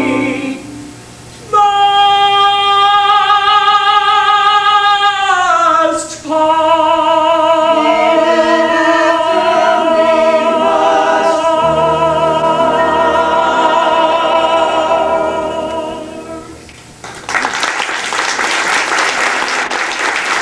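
A male crooner sings a slow ballad with long, vibrato-laden held notes, backed by a close-harmony vocal group. The final note fades out about 16 seconds in, and audience applause follows.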